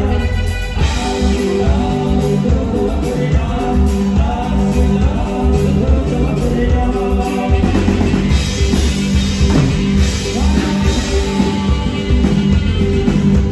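A live band playing, with a steady drum beat and bass under a sustained melody line.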